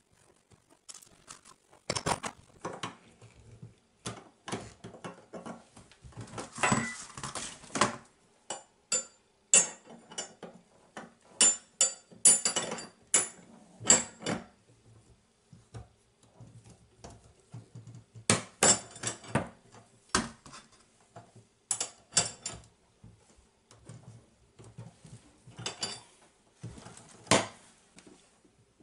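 Metal tools clinking and clanking on a chrome tub drain as an adjustable wrench and a bar set in the drain tighten the drain fitting. The irregular sharp clinks ring brightly, with a longer rattling stretch around seven seconds in.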